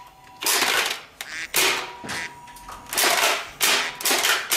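Lanard Triple-Shot toy dart shotgun being pumped and fired again and again: a run of about eight short plastic clacks and air puffs in uneven clusters.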